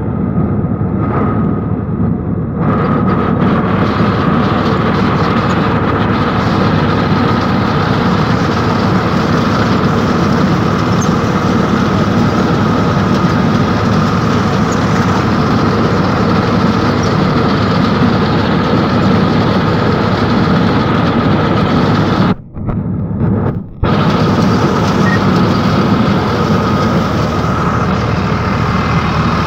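Eicher tractor's diesel engine running steadily under load while it drives a straw reaper (bhoosa machine) that chops straw and blows it out through its spout, a loud continuous mechanical drone heard from the tractor seat. A little over two-thirds through, the sound cuts out twice for a moment.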